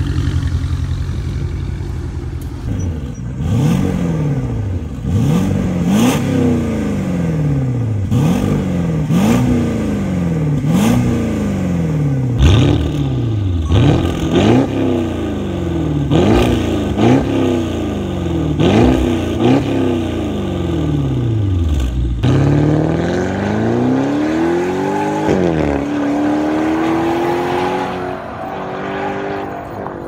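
Porsche 958 Cayenne Turbo's twin-turbo V8 through a valved Fi Exhaust catback and catless downpipes, blipped in about ten quick free revs, with a sharp crack near the top of many of them. Near the end comes one longer, slower climb in revs that levels off and fades.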